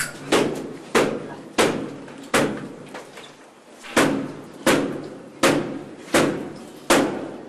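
A door being battered by repeated heavy blows as it is forced open, about one every 0.7 seconds, each with a short ringing tail. The blows pause for about a second and a half near the middle.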